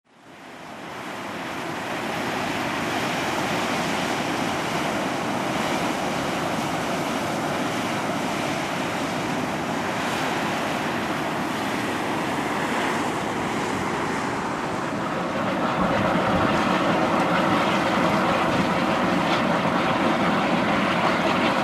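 Volcanic fumarole venting steam with a steady rushing roar that fades in at the start and grows louder about two-thirds of the way through.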